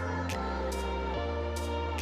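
Background music: sustained bass notes that change twice, with light percussion hits about every half second.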